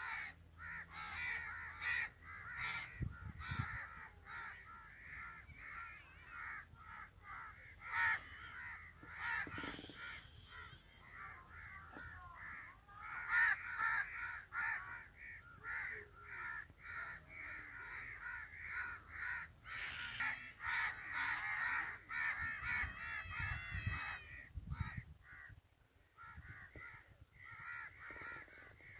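A flock of birds calling continuously, many short calls overlapping.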